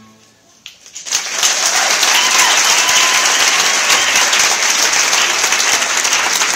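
The last note of the song's accompaniment dies away. About a second in, an audience breaks into loud, steady applause.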